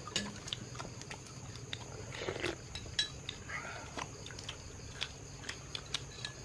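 Spoons and chopsticks clinking against porcelain bowls and plates while people eat: a scatter of light, separate clinks, with a faint murmur of voices a little after two seconds in.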